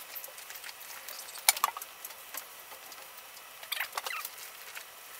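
Damp cloth rubbing and squeaking on a car's bodywork during a wipe-down, in short strokes, with a cluster of squeaks about four seconds in and a sharp click about a second and a half in.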